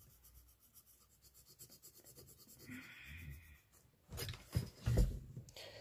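Graphite pencil scratching faintly on paper while shading. A few louder thumps and rustles follow from about four seconds in.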